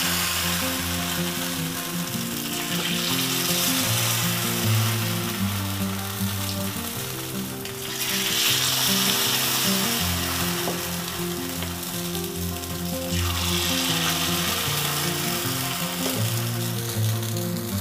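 Paniyaram batter sizzling in hot oil in the wells of a cast paniyaram pan as it is ladled in, the sizzle swelling every few seconds. Soft background music plays under it.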